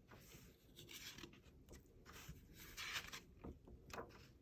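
Near silence with faint paper rustling and rubbing, a picture book's pages being handled and turned.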